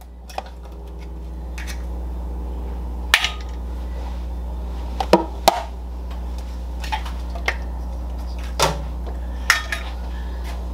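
Eggs being cracked on the rim of a blender jar: several short, sharp taps spread through, over a steady low hum that grows louder over the first two seconds and then holds.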